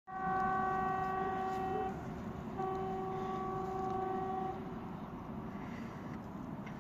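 Horn of an approaching 2ES6 electric freight locomotive sounding two long blasts of about two seconds each, a steady tone, as a greeting from its crew. A low rumble carries on under and after the blasts.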